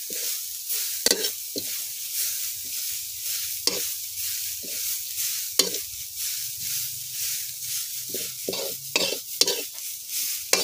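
A metal spoon stirring and scraping grated coconut around a wok as it dry-roasts over low heat, with irregular scrapes and clinks against the pan over a steady soft hiss. The strokes come closer together near the end.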